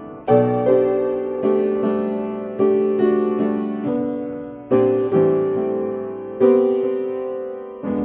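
Upright piano being played slowly: notes and chords struck roughly once a second, each left to ring and fade before the next.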